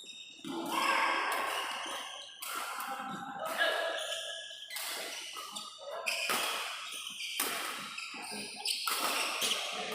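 Badminton rally: rackets striking the shuttlecock in sharp, irregular hits about every half second to a second, ringing in an echoing hall, with players' and spectators' voices among them.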